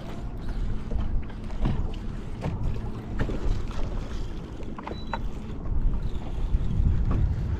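Wind rumbling on the microphone out on the water, with scattered light knocks and clicks.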